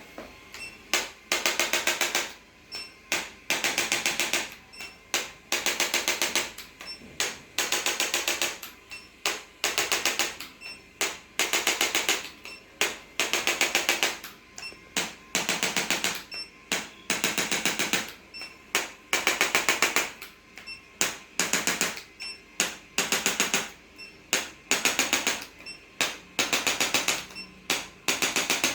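Handheld percussive treatment device tapping in repeated bursts of rapid, evenly spaced strikes, each burst lasting about half a second to a second, with short pauses between bursts.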